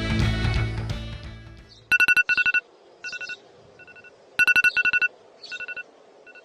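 Rock music fading out, then an electronic telephone-style ringtone. It is a fast trill on two tones in double bursts ('brrr-brrr') about every two and a half seconds, with softer repeats in between. Faint birdsong sounds in the background.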